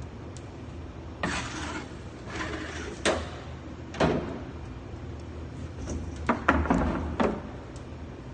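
Handling noises of a baker working at a deck oven: a couple of short scraping rushes, then several sharp knocks and clunks, grouped near the end, over a steady low hum of kitchen equipment.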